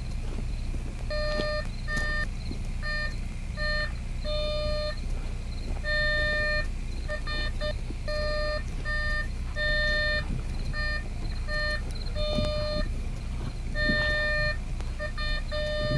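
Metal detector beeping as it is swept over the ground: short pitched beeps in an uneven on-off pattern, at times several a second, signalling buried metal. A low steady rumble runs underneath.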